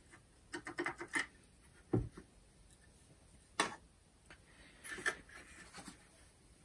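Scattered light clicks and knocks of the Makita DCF203 fan's plastic housing being handled and turned over, with a sharper click a little past halfway.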